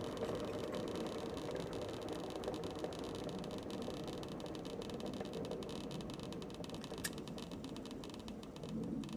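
Homebuilt electric apple grinder, a belt-driven poplar drum studded with stainless steel screws, spinning down: a steady whirring hum that slowly fades as the drum coasts toward a stop.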